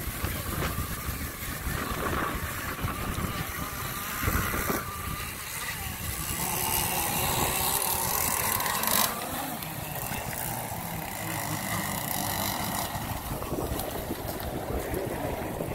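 Zenoah-powered RC racing boats' two-stroke gas engines buzzing as the boats run across the lake. The sound shifts abruptly about five and nine seconds in.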